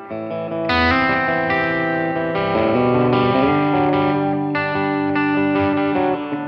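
Electric guitar chords played through a Blackstar HT-5R MkII 5-watt valve combo amp on its clean channel, voice 2: a series of strummed chords, each ringing on until the next is struck.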